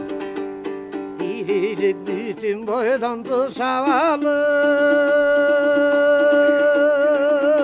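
A man singing to a komuz, the Kyrgyz three-string long-necked lute, with quick plucked strumming. His voice wavers and climbs, then from about four seconds in holds one long high note with vibrato over the plucking.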